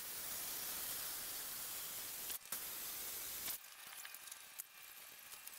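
Circular saw running as it is slid back and forth across the notches in the cedar posts to plane them smooth, an even hissing noise that breaks off briefly and then stops about three and a half seconds in. Faint handling clicks follow.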